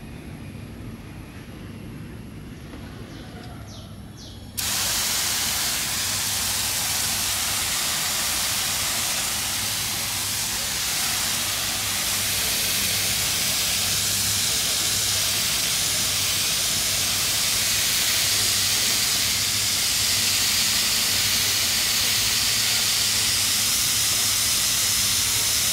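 Water spraying onto potted water spinach seedlings: a steady, even hiss that starts suddenly about four and a half seconds in, after a low hum.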